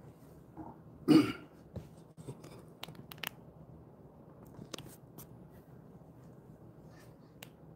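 A single short cough or throat-clear about a second in, followed by a few faint scattered clicks and ticks.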